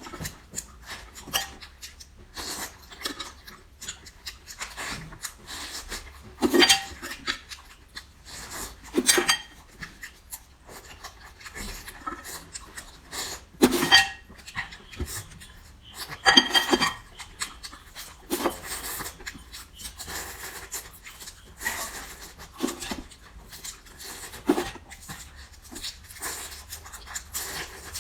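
Close-miked eating sounds: irregular chewing, sucking and slurping of seafood, with four louder slurps spread through.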